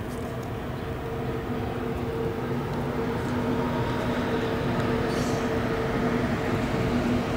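Steady mechanical rumble of a passing vehicle, with a low two-note hum, slowly growing louder.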